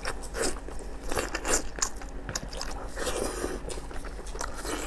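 A person biting into and chewing sauce-coated sheep tripe (omasum, or book tripe): a run of crisp crunches and wet mouth clicks close to the microphone.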